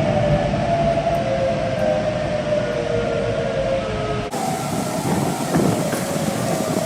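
Outdoor tornado warning sirens sounding as several sustained tones together, sliding slowly lower over a rumbling background. About four seconds in the recording cuts to another siren holding a steadier tone, with a few sharp clicks.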